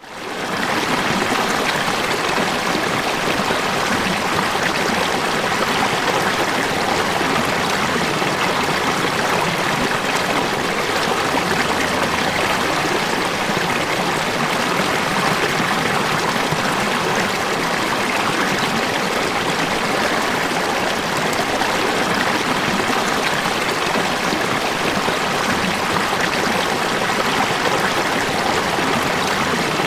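Falling water rushing in a steady, unbroken wash, fading in over the first half second.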